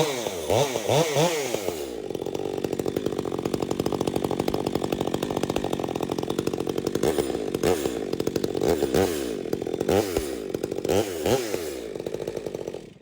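Stihl 462 two-stroke chainsaw blipped through several quick revs, running steadily for a few seconds, then revved in quick blips again before cutting off abruptly near the end.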